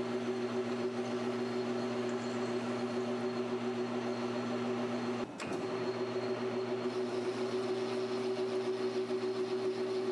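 A PM1236T benchtop metal lathe runs with a steady machine hum while a spotting drill cuts titanium. About five seconds in the sound breaks off at an edit and the lathe's hum resumes at a slightly different pitch.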